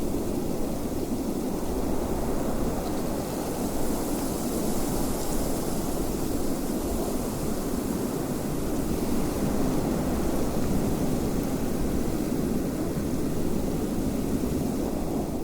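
Wind blowing steadily, a dense rushing noise with a deep rumble underneath.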